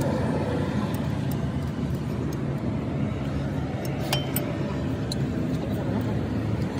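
A steady low engine-like drone, with a few light metallic clinks about four and five seconds in.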